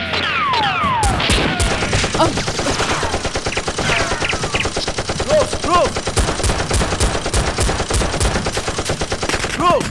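Sound-effect gunfire: rapid automatic shots that run on without a break from about a second in, with several falling whistle-like sweeps at the start.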